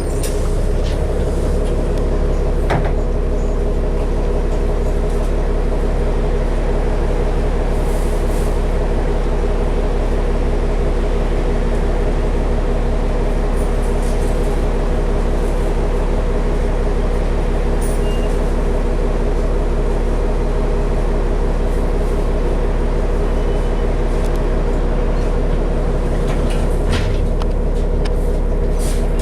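Riding inside a 2012 New Flyer D60LFR articulated diesel bus: a steady, even engine drone, with a few short rattles and clicks now and then.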